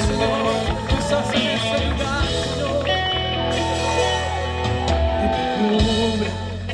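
Live worship band playing an instrumental passage between sung lines: guitar over steady bass and drums, with some singing.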